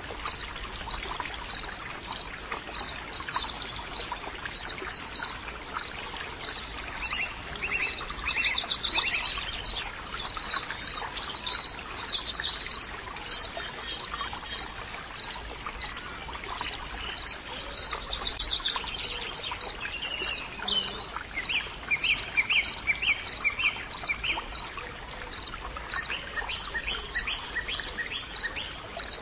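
Outdoor soundscape of small birds singing over a steady rush of running water. A short high chirp repeats evenly, about one and a half times a second, and other birds break in with bursts of varied song now and then.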